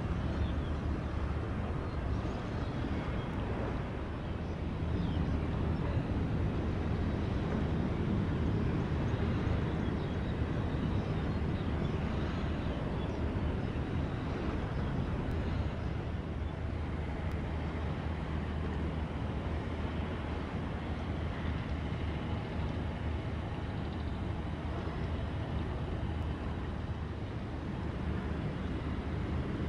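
Steady low drone of a boat engine, with a constant hum under a haze of wind and water noise.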